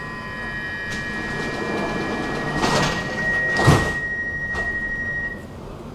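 Stockholm metro train's sliding doors closing under a steady high tone. Two sliding rushes come about three and nearly four seconds in, the second ending in a thud as the doors shut, and the tone cuts off a little before the end.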